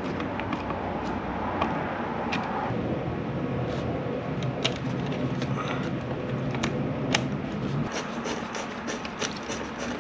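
Small clicks and taps of a screwdriver and a wrench working on a plastic DC breaker enclosure, tightening the breaker terminals and a cable gland. The clicks come thicker near the end, over a steady low hum.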